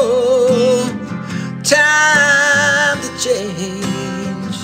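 Acoustic guitar song: strummed acoustic guitar under a voice holding long sung notes, two long ones and a short one near the end.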